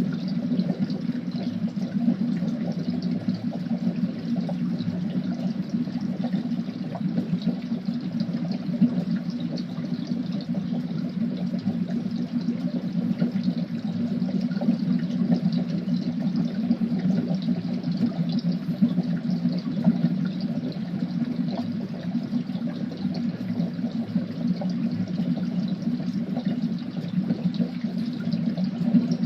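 Boiling cauldron: liquid bubbling steadily, a continuous dense boil of many small bubbles.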